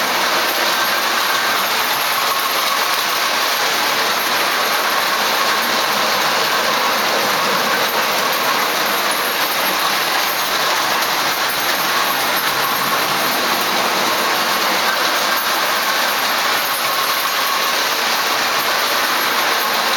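Ace Trains O gauge tinplate model locomotive and coaches running on tinplate track: a steady whirring rattle of motor and wheels that holds at an even level throughout.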